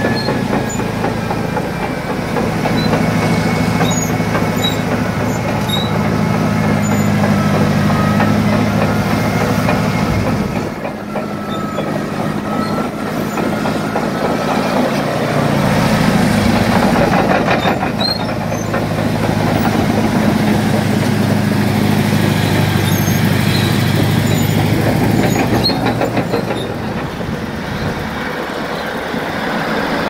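Caterpillar D9N bulldozer's 3408 V8 diesel engine idling steadily, with a faint whine above the low engine hum; the hum dips briefly about ten seconds in.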